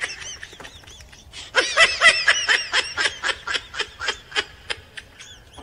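High-pitched giggling laughter: faint at first, then a quick run of short laughs from about a second and a half in, tapering off before the end.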